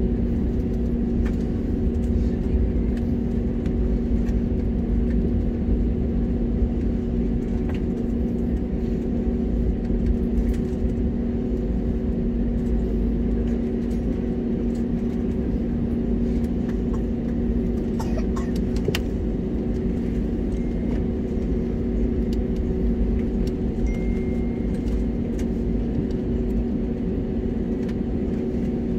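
Airbus A320neo cabin noise while taxiing at low engine power: a steady low rumble with an even two-note hum from its Pratt & Whitney PW1100G geared turbofans, and a few faint clicks about two-thirds of the way through.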